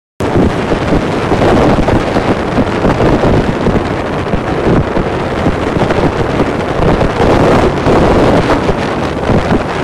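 Loud, steady wind buffeting on the microphone of a phone carried on a moving motorbike, with small swells.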